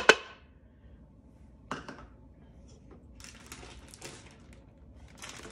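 A short clatter of chopped carrots dropping into the Instant Pot's metal inner pot, dying away at the start. Then a single knock a little before two seconds in and light scraping and rustling around three to four seconds in.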